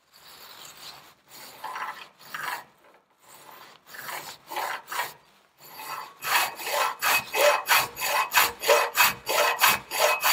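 Half-round metal file rasping back and forth across a washer held in a bench vise, cutting a slot for a shaft key. A few slow, spaced strokes at first, then from about six seconds in quicker, louder strokes at about three a second.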